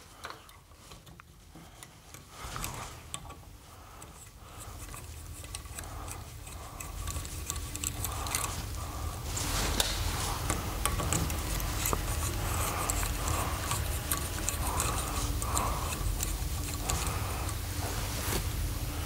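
Light clicking and rubbing of a small hand driver with a 5.5 mm socket as it unscrews small bolts from the aluminium oil-filter housing. A low hum grows louder under it from about a third of the way in.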